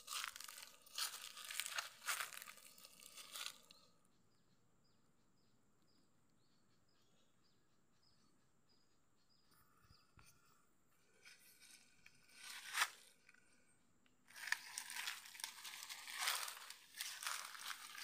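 Footsteps crunching and rustling through dry leaf litter in two spells, with a quiet stretch between in which faint high ticks repeat about twice a second.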